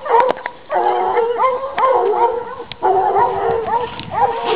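A small mixed pack of Nivernais and Anglo-Beagle hounds baying together in overlapping, drawn-out cries at a wild boar held at bay.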